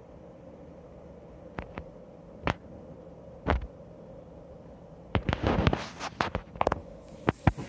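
Handling noise: irregular sharp clicks and knocks, with a burst of crackling rustle about five seconds in, over a faint steady hum.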